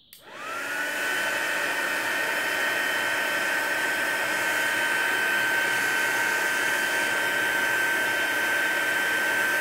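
Handheld craft heat gun switched on, its motor spinning up over the first second into a steady high whine over a rushing blow of air. It is melting wax into paper.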